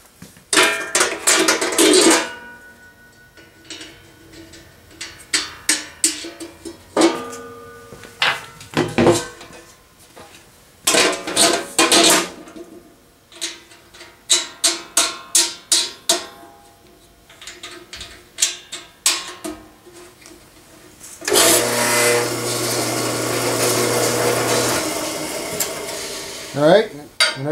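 Metal knocks and rattles as the vertical bandsaw's covers are put back on and its fittings handled. About twenty-one seconds in the bandsaw runs steadily with a low hum for about three and a half seconds, then stops suddenly.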